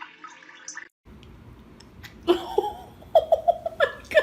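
Giggling laughter in quick short bursts, starting about two seconds in and growing louder toward the end, after a brief break in the sound.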